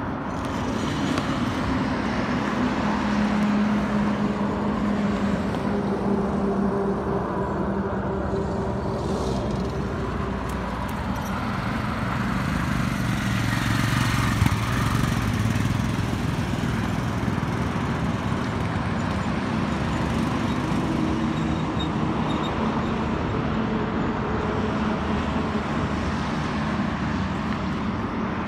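Royal Enfield Himalayan's single-cylinder engine running steadily, growing louder for a few seconds about halfway through.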